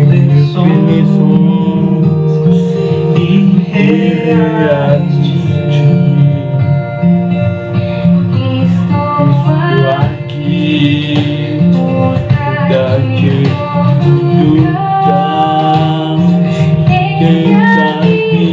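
A slow song sung to acoustic guitar accompaniment, the melody rising and falling over steady low guitar notes.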